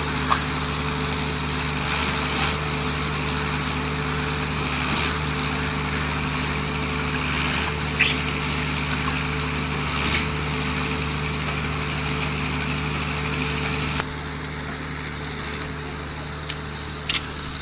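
Diesel engine of a concrete mixer pump running steadily, with a few short knocks from the machine. The engine sound drops in level about 14 seconds in.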